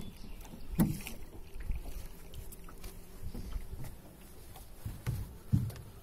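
Small hand-propelled boat moving along the water: water splashing with low knocks against the hull, the two loudest about a second in and near the end.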